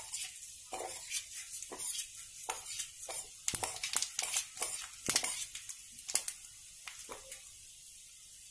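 Cumin and fennel seeds crackling and popping in a little hot oil in a kadhai as they are tipped in for a tempering (tadka): irregular sharp pops, one or two a second, thinning out after about six seconds.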